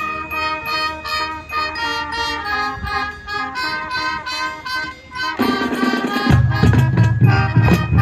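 Marching band starting a new piece after a pause: a higher held melody first, then about five and a half seconds in a bass line and drum hits come in and the band gets louder.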